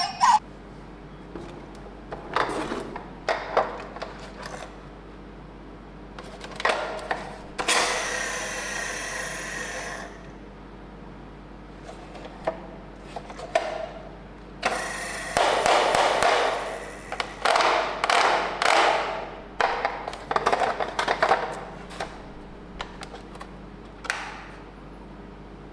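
Plastic toys being handled: scattered clicks and knocks, with a rattling stretch of about two seconds near the middle and a cluster of rattles and clacks later on.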